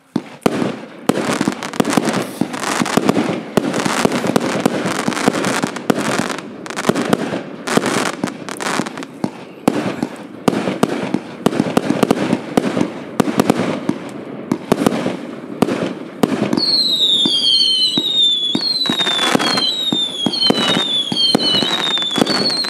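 Hallmark Fireworks' Vanquish firework firing a rapid, continuous volley of shots and bursts. About two-thirds of the way through, a run of falling whistles joins the shots, roughly one a second.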